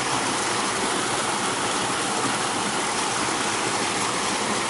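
Small mountain creek running steadily, its water splashing down a little cascade between boulders.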